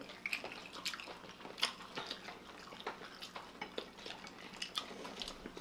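People eating burgers and fried onion rings: scattered soft clicks of chewing and lip-smacking, with light taps of food and fingers on ceramic plates.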